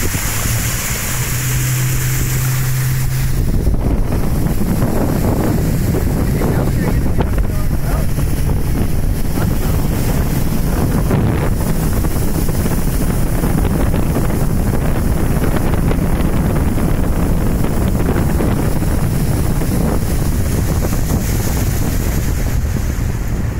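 Motorboat running at speed with a steady low engine hum, heavy wind buffeting on the microphone and water rushing past the hull. About three seconds in, the wind noise swells and mostly covers the engine.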